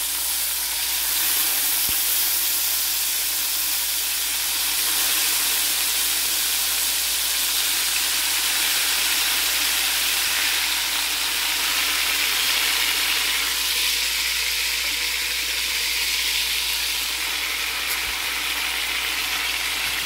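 Marinated chicken drumsticks sizzling steadily as they shallow-fry in hot olive oil in a stainless steel wok, with a couple of faint clicks as more pieces are set in the pan.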